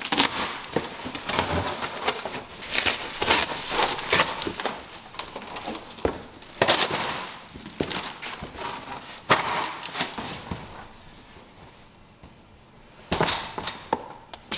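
Cardboard being ripped and pulled apart as a large shipping crate is torn open: repeated tearing, crackling and knocks, going quieter for a couple of seconds before a few more sharp handling sounds near the end.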